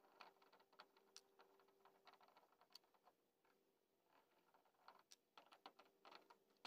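Near silence, with faint scattered clicks and small scrapes of a screwdriver on the carburetor of an 18 HP Briggs & Stratton V-twin as its screws are worked loose; the clicks come more often near the end.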